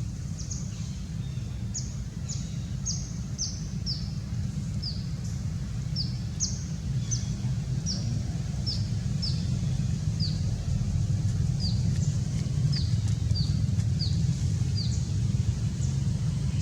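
A small bird repeating a short, high, falling chirp about twice a second, over a steady low rumble that grows louder toward the end.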